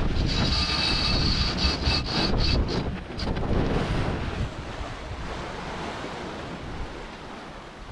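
Water rushing and splashing along the hull of a 37-foot sailing yacht under sail, with wind buffeting the microphone. The hiss of spray is strongest in the first few seconds, and the whole sound fades gradually toward the end.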